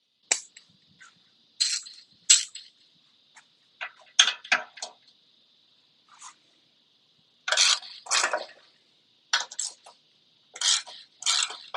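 Metal hand tools and compressor parts clinking and knocking in short, irregular clicks, about a dozen or more, during teardown of an old Ingersoll Rand air compressor.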